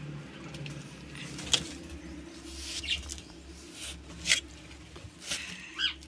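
Short, high chirps from small cage birds, about six, spread out, over a low steady hum.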